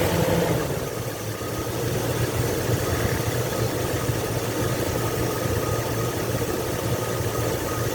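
A 2001 Chevy Tahoe's 5.3-litre V8 idling steadily shortly after a cold start, easing down from a slightly louder moment at the very start. This is the engine the owner says has a lifter tick on cold start that goes away once it has run a little.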